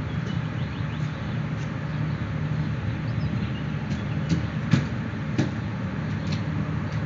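Steady low rumble of city traffic, with a few sharp clicks about four to five and a half seconds in.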